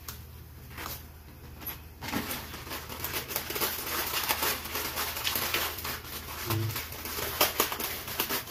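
Water boiling in a steel kadai with two blocks of instant noodles in it: a crackling, bubbling hiss that grows louder about two seconds in.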